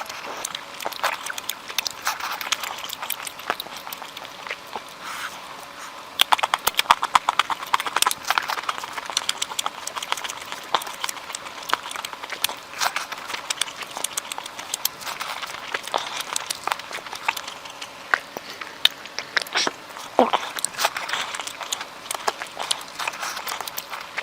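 Close-miked eating sounds: chewing with many sharp wet mouth clicks and smacks, coming thickest about six to nine seconds in.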